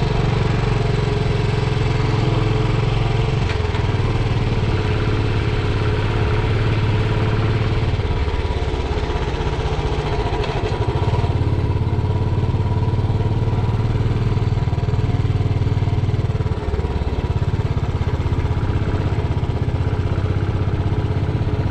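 Motorcycle engine running steadily while the bike cruises along a paved road, with wind and road noise.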